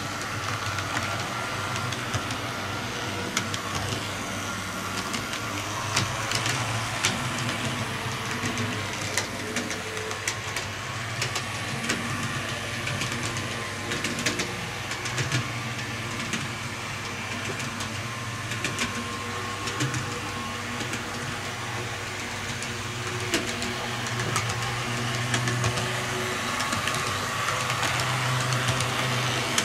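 Two TT-scale model railcars of the ČD class 850 running on track: a steady electric motor hum with frequent light clicks of wheels over rail joints and turnouts.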